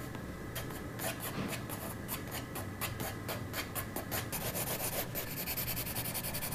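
Pencil scratching across a sketchbook page in short sketching strokes, the strokes coming quicker and closer together in the second half.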